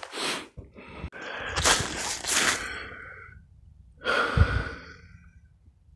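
A hiker on snowshoes breathing hard while walking: four noisy breaths or crunching steps in snow, one to two seconds each, with a dull thud about four and a half seconds in.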